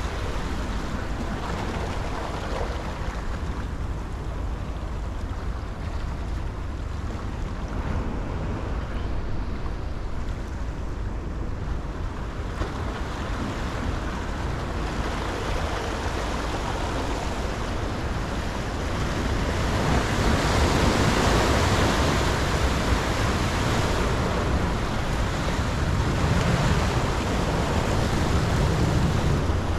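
Ocean surf washing and surging over the rocks of a jetty, a steady rush of water that grows louder about twenty seconds in.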